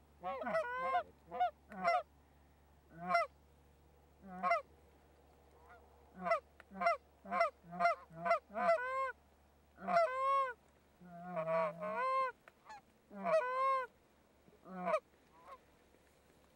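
Canada geese honking: a fast, irregular run of short honks and clucks, with brief pauses, thinning out near the end.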